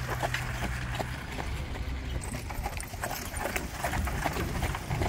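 Hooves of a horse pulling a carriage clip-clopping on sandy ground, several irregular strikes a second, over a steady low rumble.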